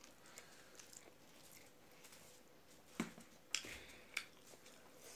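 Mostly quiet, with faint, sparse clicks and squelches of food being handled: curry scooped by hand from a plastic tub onto rice, and the rice then mixed by hand on a steel plate. A few sharper clicks come about three to four seconds in.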